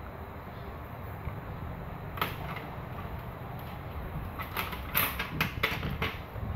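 Coloured pencils clicking and clattering against one another and the plastic pencil case as a child rummages for one. A single click comes about two seconds in, then a quick run of sharp clicks in the second half, over a steady low rumble.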